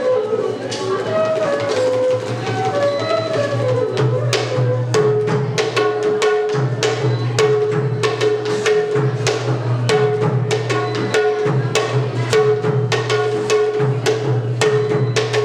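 Folk-style instrumental ensemble music with hand drums. A wind melody steps through a few notes at first. From about four seconds in, a repeated held note sounds over fast, steady drumming and sharp metallic strikes.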